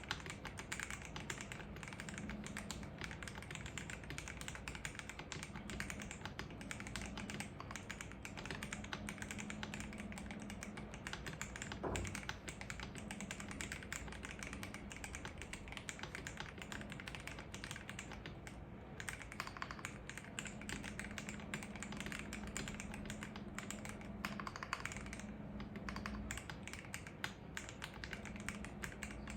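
Continuous fast typing on a KBD67 Lite R3 mechanical keyboard with lubed Akko CS Starfish linear switches, Poron case foam and Durock V2 screw-in stabilizers. One heavier keystroke stands out about twelve seconds in.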